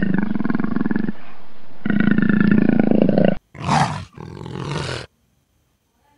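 Leopard growling: two long rasping calls, the second cutting off sharply about three and a half seconds in, followed by two short, harsher calls.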